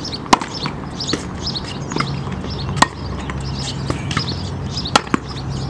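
Tennis ball struck by rackets in a rally: three sharp hits about two to two and a half seconds apart, with fainter knocks between them. Birds chirp throughout.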